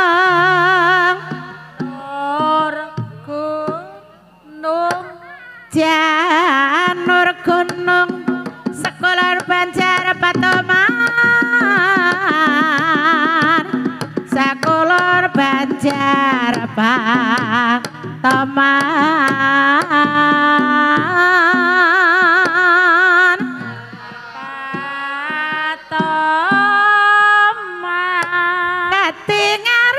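Banyumasan gending, Javanese gamelan music: a sinden (female singer) sings long, sliding lines with heavy vibrato over the ensemble, pausing briefly a few seconds in.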